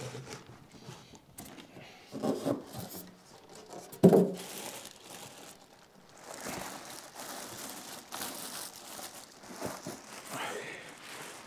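Cardboard box and packing material being pulled off a subwoofer by hand: rustling, crinkling and tearing, with a sharp knock about four seconds in.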